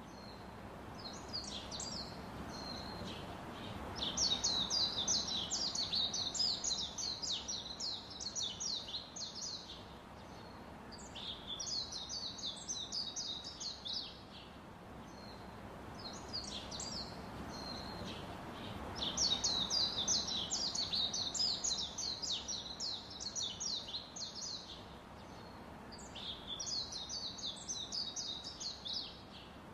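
A small bird singing in repeated phrases of rapid, high chirps, each phrase one to three seconds long and returning every few seconds.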